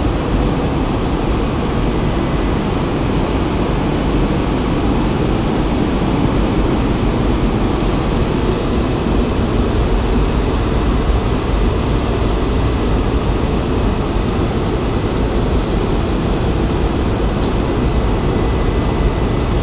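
Steady loud low rumble and hiss of plant machinery, with a higher hiss swelling for about five seconds from about eight seconds in.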